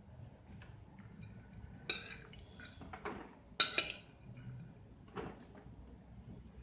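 Kitchenware clinking and knocking a few times as cut carrots are moved from a dish into a zip-lock bag, the loudest pair of clinks about three and a half seconds in.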